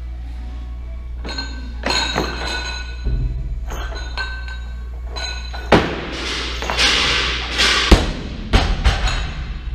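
Loaded barbell with rubber bumper plates being lifted and dropped on a wooden lifting platform. The plates clink as the bar leaves the floor and is caught at the shoulders. The loudest thud comes near the end, when the bar lands, followed by a few quick bounces. Background music plays underneath.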